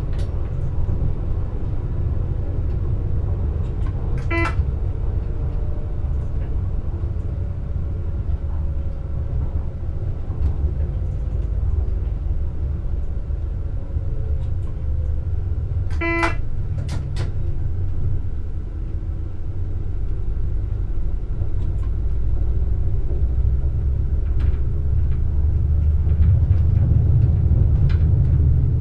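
Class 648 (Alstom Coradia LINT 41) diesel multiple unit running along the line, heard from inside the driver's cab: a steady low rumble of the diesel engine and wheels on rail, growing louder in the last few seconds. A faint whine slowly falls in pitch over the first half, and two brief sharp sounds cut through about twelve seconds apart.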